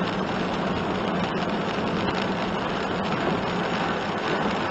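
Steady in-cabin noise of a kei one-box van driving on a wet road: tyre hiss on wet tarmac over a low, steady engine hum.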